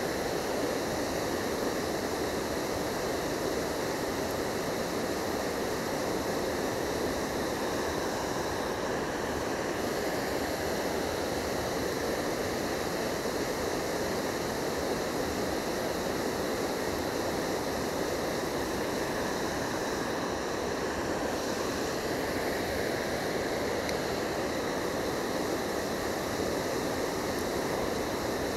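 Water pouring over a low river weir: a steady, unbroken rushing.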